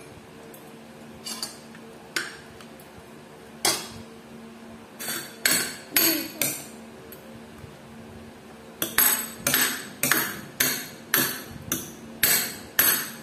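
Sharp knocks on a hard surface, like pounding or chopping at a table. They come a few at a time at first, then as a steady run of about two a second from about nine seconds in.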